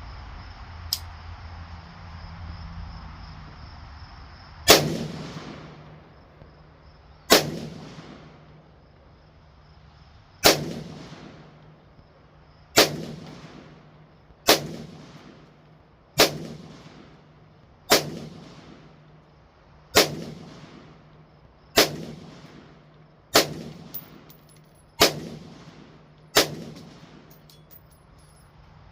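Semi-automatic AR-15 rifle fired in slow, aimed shots, about a dozen single rounds spaced one and a half to three seconds apart, each crack followed by a short echoing tail.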